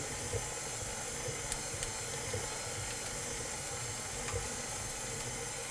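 Steady hiss of room tone, with a couple of faint light clicks about a second and a half in.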